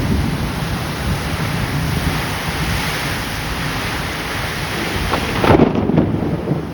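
Steady heavy rain with a continuous low rumble under it, and a few brief louder knocks or splashes about five and a half seconds in.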